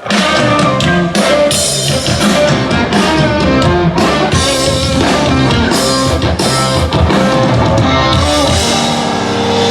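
A band plays through the stage sound system during a sound check, electric guitar and drum kit kicking in loudly all at once with a steady beat.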